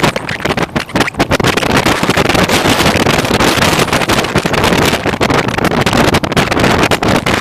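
Loud wind buffeting on the microphone of a camera moving along a road: a steady rushing rumble with rapid, uneven flutter.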